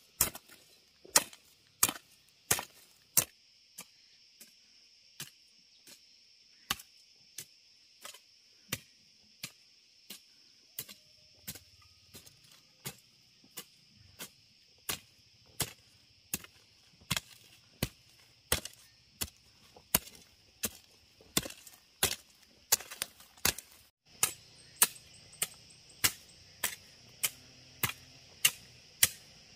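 Steady chopping: sharp strikes of a blade about one and a half a second, over a constant high-pitched drone of insects.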